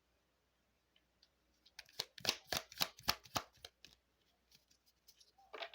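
A deck of Lenormand (baralho cigano) cards being shuffled by hand: a quick run of crisp card slaps and flicks for about two seconds, starting a little after a second of quiet.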